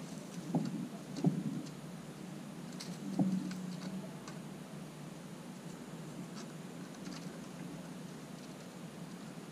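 Eastern gray squirrel's claws scraping and knocking on a wooden fence as it climbs down the boards: three short dull scuffs in the first few seconds, then only a steady outdoor background.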